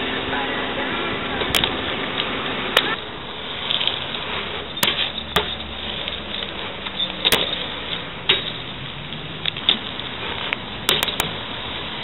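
BMX bike ridden over pavement and street obstacles: a steady rolling hiss with sharp knocks and clacks as the bike lands and hits the ground, several in quick succession near the end.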